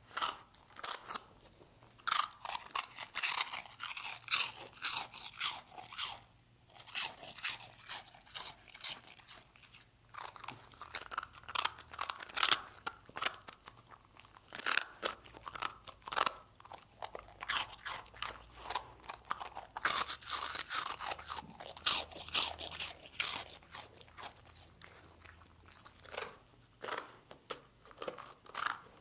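A dog crunching and chewing hard, dry rusk: runs of quick, crisp crunches broken by brief pauses.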